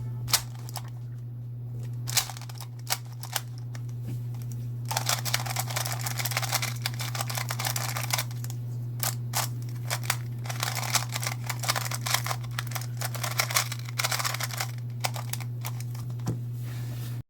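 A QiYi MP 2x2 puzzle cube being turned by hand: scattered single clicks, then two long runs of rapid clicking turns, starting about five and about ten seconds in. A steady low hum sits underneath.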